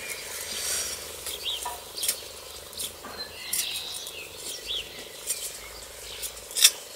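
A small hand rake scraping and scratching through loose garden soil while digging a planting hole, in irregular strokes with scattered clicks. The sharpest click comes near the end.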